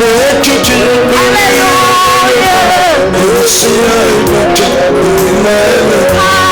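Swahili gospel worship chorus: singing over continuous instrumental backing, with a voice singing "Haleluya" about two and a half seconds in.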